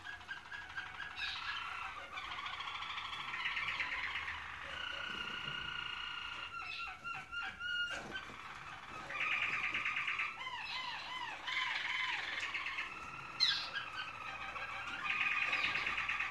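Roller canary song: a continuous run of rolling trills that changes phrase every second or two, including a long even roll and a string of looping rise-and-fall notes partway through.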